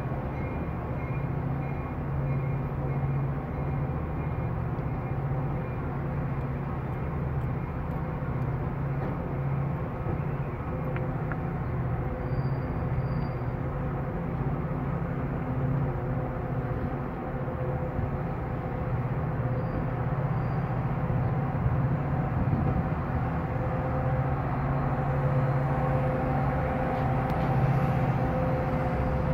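Steady low rumble of a diesel train engine running nearby, with several steady tones over it, growing a little louder over the last several seconds.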